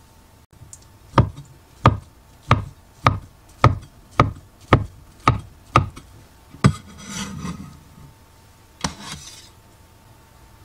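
A steel cleaver chopping thin egg strips on a wooden cutting board: about ten sharp knocks of the blade on the board, a little under two a second. Then a brief scrape and one last knock.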